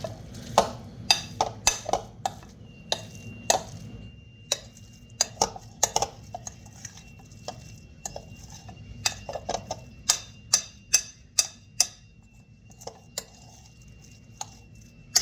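A utensil clinking and scraping against a bowl while pimento cheese is mixed: irregular sharp clinks, one or two a second, thinning out near the end.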